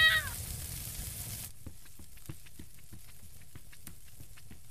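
A short vocal exclamation ends right at the start. Then a fire crackles quietly, with soft hissing and small irregular pops.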